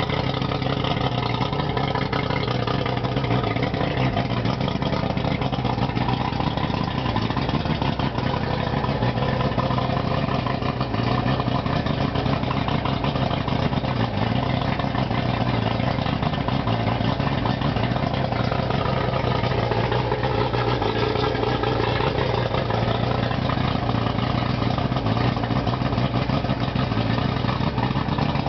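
Outboard boat motor running steadily at idle.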